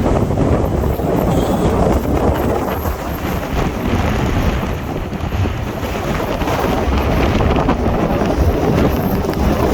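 Strong wind buffeting the microphone: a steady, loud, low rumble.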